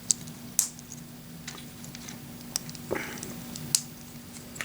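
LEGO plastic bricks clicking and tapping as log bricks are handled and pressed onto a build: about half a dozen sharp separate clicks, over a faint steady hum.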